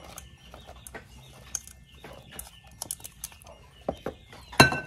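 Cooked vegetables being tipped from an aluminium pot and tossed by hand onto lettuce in a plastic bowl: soft scattered clicks and rustles, with a louder clatter near the end.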